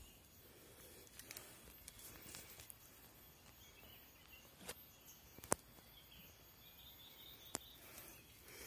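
Near silence: faint forest background noise, broken by a few short, sharp clicks, the loudest about five and a half seconds in.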